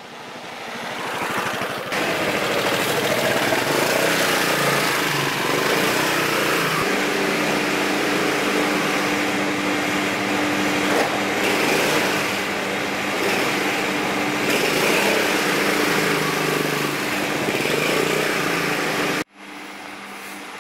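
Motor scooter engine running as the scooter rides up, swelling over the first two seconds and then steady and loud. It cuts off suddenly near the end, leaving a quieter hum.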